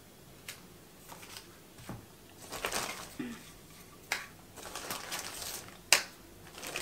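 Plastic vacuum cleaner attachments being unpacked and handled: a plastic bag crinkling and rustling, with scattered clicks and knocks of the hard plastic parts, the sharpest click about six seconds in.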